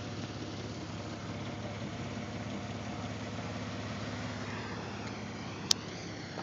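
A vehicle engine idling steadily, with a single sharp click about five and a half seconds in.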